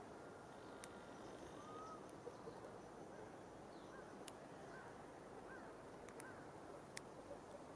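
Near silence: faint steady outdoor background with a few faint short bird chirps scattered through it, and three small sharp clicks.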